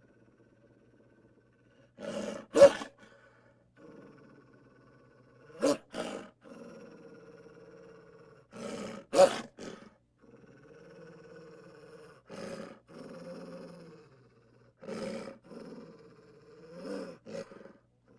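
Animal growling and roaring sound effects in drawn-out patches, broken by three sharp, loud hits.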